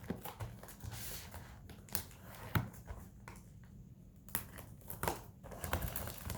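A cardboard trading-card box and its wrapping being handled: irregular rustling and crinkling with scattered sharp taps and clicks, the busiest stretch a little past the middle.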